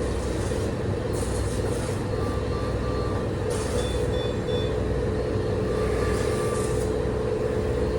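Steady hum of ward machinery with a medical equipment alarm beeping in short runs of three or four beeps every few seconds.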